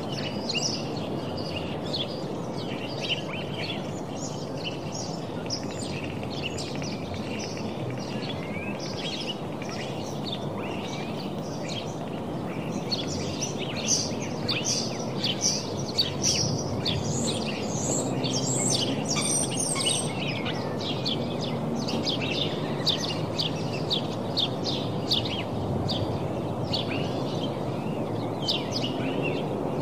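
Many small birds chirping in quick, overlapping calls over a steady background hiss. The chirping grows busier and louder about halfway through.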